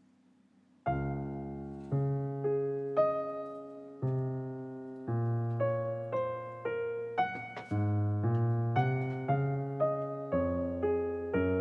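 Background piano music, starting about a second in, with single notes struck one after another and each fading away.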